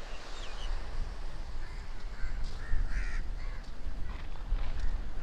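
Wind buffeting the microphone as a steady low rumble, with a few short bird calls close together about two to three seconds in.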